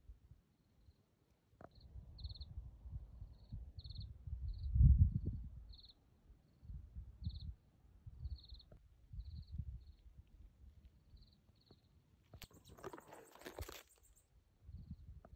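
Outdoor ambience: repeated short, high-pitched chirps at an even pitch, one or two a second, over uneven low rumbling on the microphone, with a brief loud hiss about twelve seconds in.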